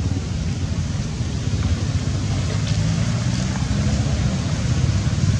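Steady low rumble with an even hiss above it: outdoor background noise, with no calls from the baby monkey.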